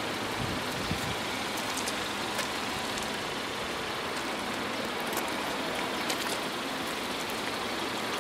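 Steady hiss of outdoor background noise, with a few faint clicks.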